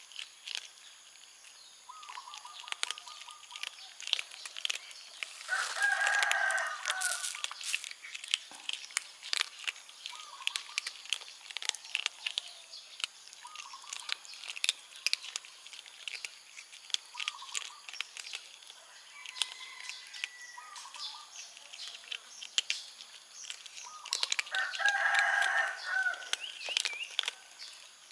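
Kittens crunching dry kibble, a steady run of small crisp crunches. Twice, about six seconds in and again near the end, a loud drawn-out bird call rises over it, with a few shorter, softer calls in between.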